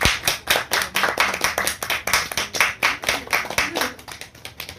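A few people clapping their hands in a quick, uneven patter, thinning out and growing quieter near the end.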